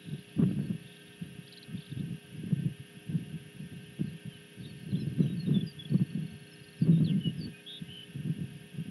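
Wind buffeting an outdoor microphone: irregular low rumbling thumps that come and go, with faint high chirps in the middle.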